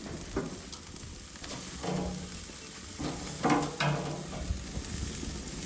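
Jerk chicken pieces sizzling on a grill just after their first turn, a steady frying hiss.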